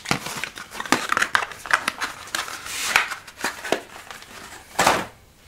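Firework packs being handled and set down in a cardboard shipping carton: rustling and crinkling packaging with short clacks and scrapes, and one louder handling noise about five seconds in.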